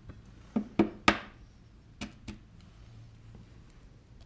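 A few sharp knocks of a utensil against a mixing bowl while choux pastry dough is worked by hand: five in the first two and a half seconds, the third the loudest.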